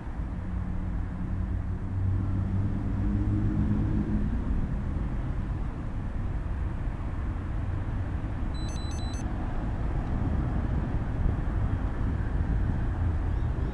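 Road traffic passing steadily, with a motor vehicle's low engine drone standing out in the first few seconds. About nine seconds in, a brief high ringing of a few quick strokes.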